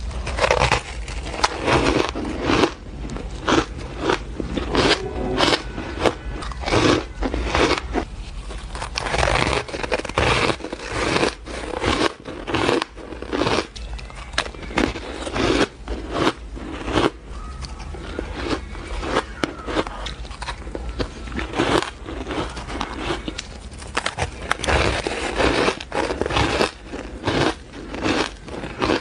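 Chunks of fluffy frozen ice bitten and chewed close to a clip-on microphone: a dense, irregular run of sharp crunches and crackles, a few a second.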